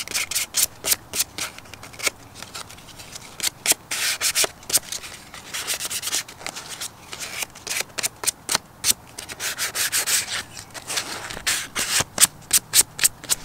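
A small plastic car-interior trim cover being scuffed by hand with an abrasive pad, keying the surface for paint. Quick, uneven back-and-forth rasping strokes come a few per second, in runs with short pauses between.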